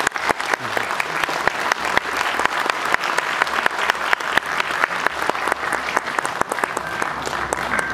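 Audience applauding: many people clapping at once, a dense, steady patter of claps.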